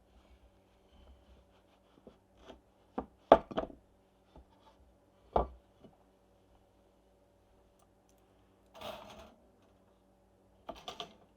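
Hard objects handled on a kitchen counter, such as dishes, utensils or bread being set down or cut. There are a few sharp knocks, a quick cluster of three about three seconds in and another a couple of seconds later, then a brief rustle about nine seconds in and a short clatter near the end.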